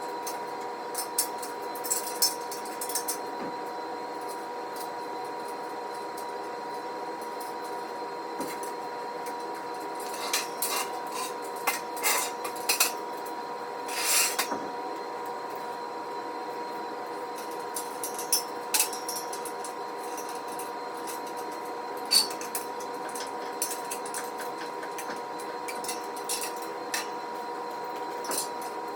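Metal squat-rack parts and hardware clinking and knocking together as they are handled and fitted, in scattered clicks and short clusters of taps, over a steady electrical hum.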